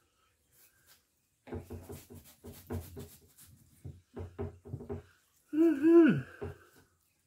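A man's short strained grunts, then a longer groan falling in pitch about six seconds in: the effort of cutting shark meat off the bone with a blunt knife.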